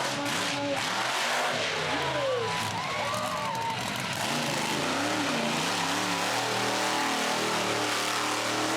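Monster truck engine running at a live show, its pitch rising and falling as it is revved, over a steady loud noise.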